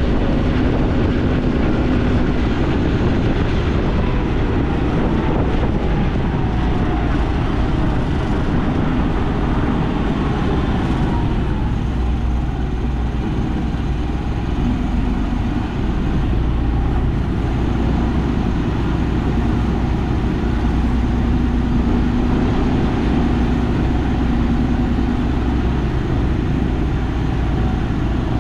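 Farm tractor engine running steadily under load, with a low hum and wind noise on the microphone.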